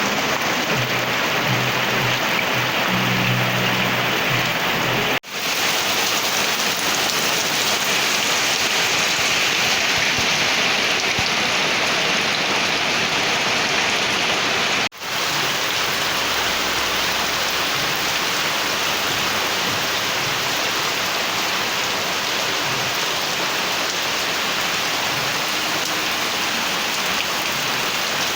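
Heavy cyclone rain pouring steadily, a dense even hiss of falling water. The sound drops out briefly twice, about five and fifteen seconds in.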